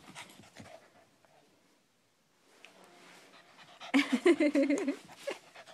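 Boston Terrier puppy whining and warbling in a loud burst lasting about a second, starting about four seconds in, after faint scuffling and a short quiet stretch.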